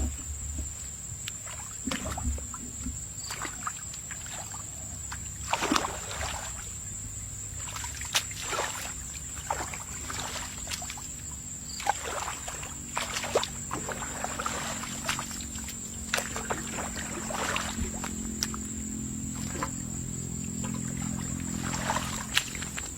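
Irregular splashing and sloshing of shallow muddy water, as when someone hunts for fish with their hands, over a steady high-pitched whine.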